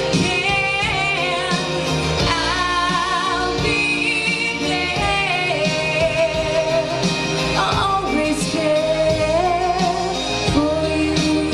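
A woman singing a song into a handheld microphone over instrumental backing music.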